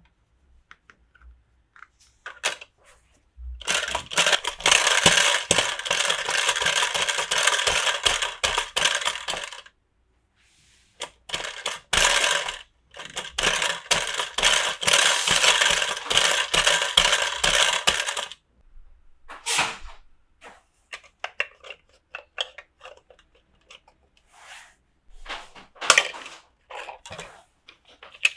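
Small hard plastic toy pieces rattling and clicking together in two long runs of several seconds each, then scattered single clicks and taps.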